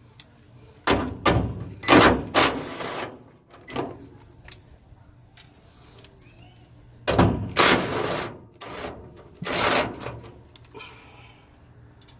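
Socket ratchet working the grill's retaining nuts: two groups of short, loud rasping strokes, the first about a second in and the second around seven seconds in, with a few clicks between.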